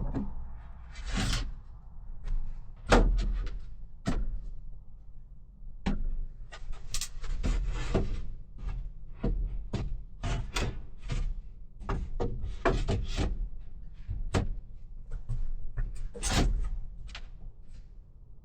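Wooden shelf board being worked into place by hand: a run of irregular knocks, bumps and scrapes of wood against wood, the loudest about three seconds in. The board is twisted and will not seat.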